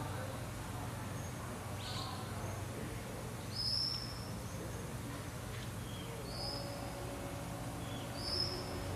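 A few short, high chirps, flat or dropping at the end, scattered through over a steady low hum.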